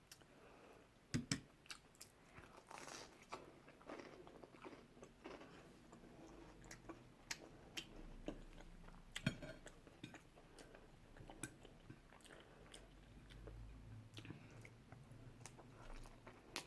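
A person chewing and biting crisp food, quiet, irregular crunches and mouth clicks close to the microphone, eating prawn toast.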